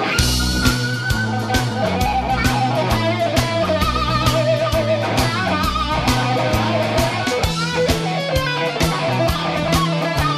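Band music: a lead electric guitar playing bent, wavering notes over a bass line and a steady drum beat, with a loud entry right at the start.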